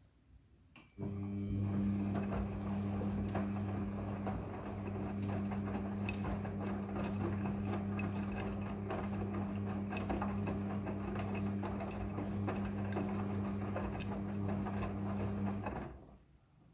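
Midea front-loading washing machine running with a steady, even hum that starts suddenly after a click about a second in and stops near the end.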